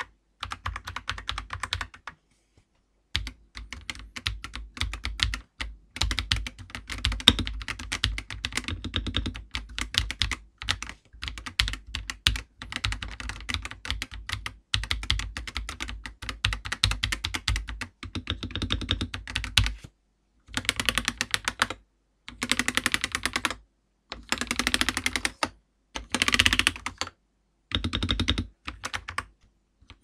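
Fast typing on an Akko 5075B Plus mechanical keyboard with factory-lubed Akko V3 Cream Blue tactile switches and PBT keycaps: quick runs of key clicks in bursts of a few seconds, with a short pause about two seconds in and several brief pauses near the end.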